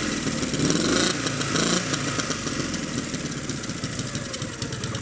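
Motorcycle engine running, louder for the first couple of seconds and then settling into a steady run.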